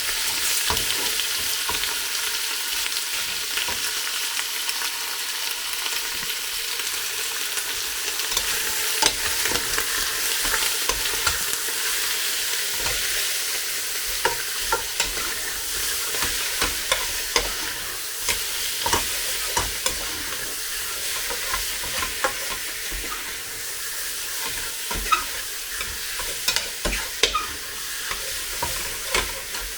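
Cubed chicken sizzling in hot olive oil in a frying pan, a steady hiss with scattered sharp knocks and pops that come more often near the end.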